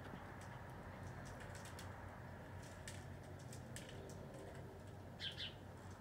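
Two short, sharp bird calls, each sliding down in pitch, about five seconds in, over a steady low background hum with faint high ticking chirps scattered throughout.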